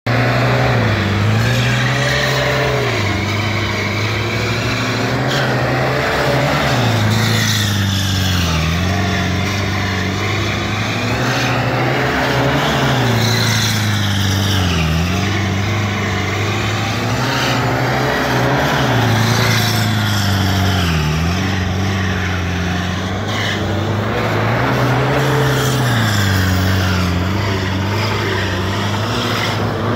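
Turbocharged engine of a 2006 Nissan Caravan van revving hard through drifting figure eights, its note rising and falling every few seconds, with its spinning rear tyres screeching and smoking against the tarmac.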